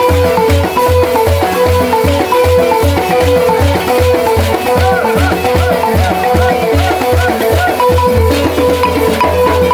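Senufo balafon (gourd-resonated xylophone) playing a fast repeating pattern of struck notes, with a rattle and a steady low beat of about three pulses a second.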